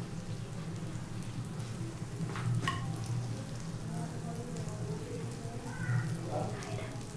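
Butter sizzling and frothing as it melts in a nonstick frying pan, over a steady low hum. A wooden spatula moves it around at first, with a few light knocks about two and a half seconds in.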